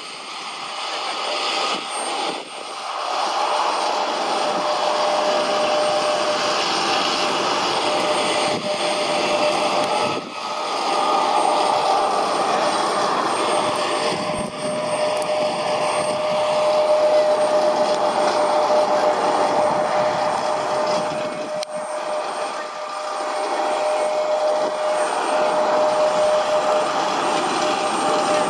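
Steady jet-aircraft turbine noise on the airport apron: a rushing hiss with a constant whining tone, swelling over the first few seconds and then holding level.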